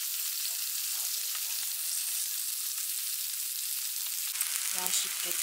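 Chopped kimchi sizzling as it fries in a grill pan, a steady hiss. Near the end a few light clicks come from the scissors and tongs cutting it up in the pan.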